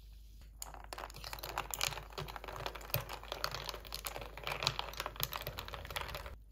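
Carbonated green-tangerine ade fizzing in a glass over ice: a dense, fine crackle of bubbles popping that starts about half a second in and cuts off suddenly near the end.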